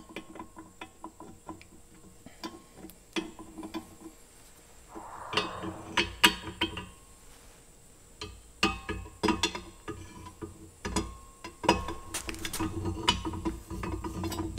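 Metal parts of a Dempster windmill pump head clinking and knocking as they are fitted together by hand, with scattered light clicks, a short scrape about five seconds in, and busier knocking from about the middle on.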